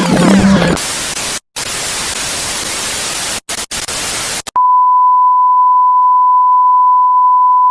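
Television static hiss, broken by a few brief dropouts, then a steady 1 kHz test-tone beep held for about three seconds: an off-air TV effect.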